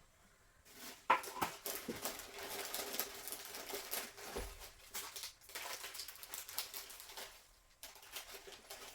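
Packaging being handled: a dense, crackly rustling and crinkling of wrapped packages, starting about a second in and fading out near the end.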